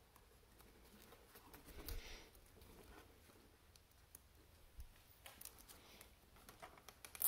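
Faint handling sounds of a plastic zip tie being threaded through the suit's skin and around the frame's crossbar: soft rustling and scattered small clicks, with a brief rubbing swell about two seconds in.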